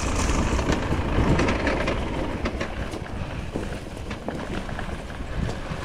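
Enduro motorcycle moving along a dirt forest trail, heard from the rider: a steady low rumble with scattered clicks and rattles from the bike going over the ground.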